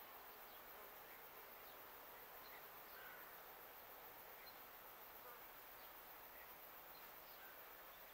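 Near silence: faint outdoor background hiss with a few faint, short chirps scattered through it.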